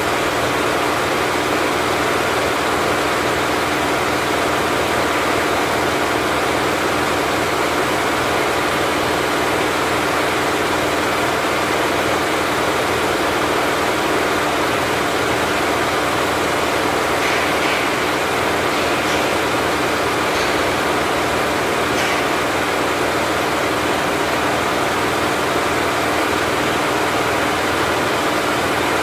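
Richpeace 20-head flat embroidery machine running steadily at 1200 RPM, all heads stitching at once.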